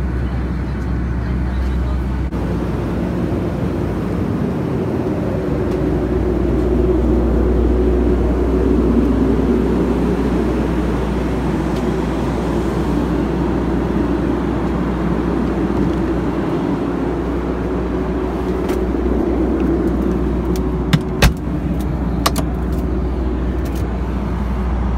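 Steady rumble and rushing hiss of a jet airliner's cabin in flight. A few sharp clicks come near the end.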